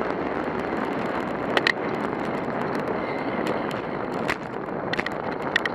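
Wind rushing over the microphone and tyre noise from a road bicycle rolling downhill at about 24 mph. A few sharp clicks or knocks come through about a second and a half in and again near the end.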